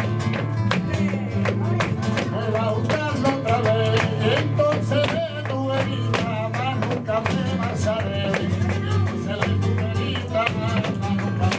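Live sevillanas: flamenco guitar accompanying a male singer's wavering, ornamented melody, with many sharp percussive strikes.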